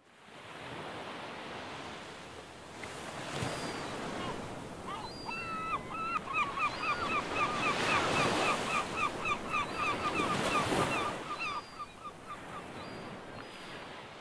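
Outdoor ambience: a rushing noise that swells and fades several times, with a bird calling in a quick run of short repeated notes, about three or four a second, from about five seconds in until near the end.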